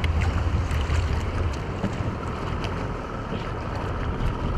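Wind rumbling on the microphone over a steady rush of water from a kayak moving on the sea, with a few light ticks. The rumble is heaviest in the first second and a half.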